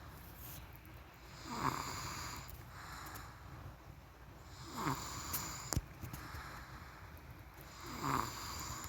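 A person snoring in their sleep: three snores about three seconds apart, each dropping in pitch. A single sharp click comes just after the second snore.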